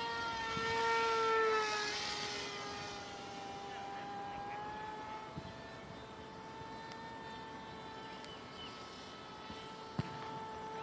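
Electric motor and propeller of a Zagi 400X flying wing whining in flight. It is a steady high tone that swells and dips slightly in pitch about a second in as the plane passes, then holds steady and fainter.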